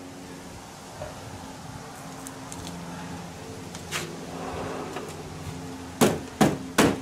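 A low steady hum with a few faint clicks from hand work on the van's front end, then near the end sharp knocks about twice a second, three in a row, each ringing briefly, like hammer blows.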